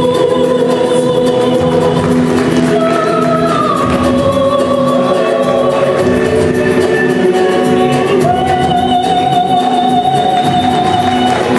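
Show music with singing voices holding long notes over a steady low drone, the accompaniment for a winter guard routine.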